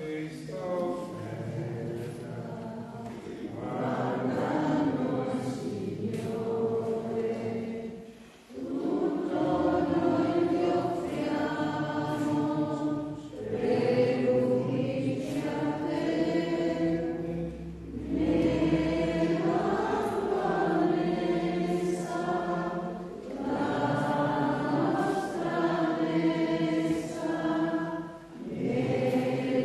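Several voices singing a church hymn together at the offertory, line by line, with short pauses between phrases.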